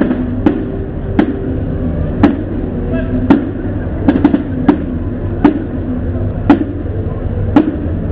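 Marching band's drums beating a steady marching cadence, a sharp stroke about once a second, with chatter between the beats.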